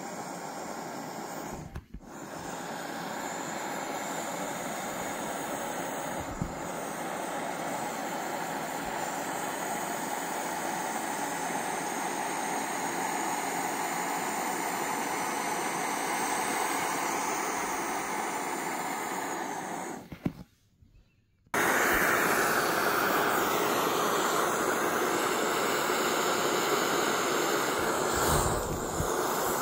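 Air hissing steadily out of the open valve hole of a vinyl exercise ball as it is pressed down to deflate it. The hiss breaks off twice: briefly near the start, and for about a second two-thirds of the way through. It comes back louder after the second break.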